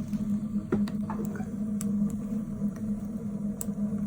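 Homemade wood-burning rocket stove drafting hard, a steady low hum with scattered sharp crackles from the burning wood.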